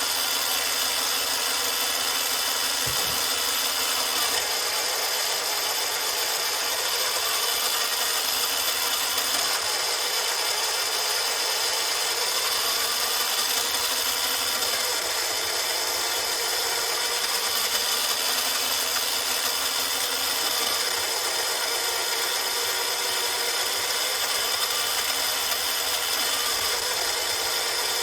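Arrma Kraton RC truck's electric motor and drivetrain running steadily at low speed with the wheels spinning freely, a continuous whir with a steady gear whine, breaking in the new differentials.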